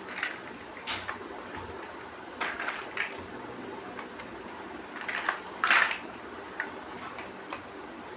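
Plastic building bricks being handled and pressed together: a series of sharp clicks and snaps, the loudest about two-thirds of the way through, over a steady low hiss.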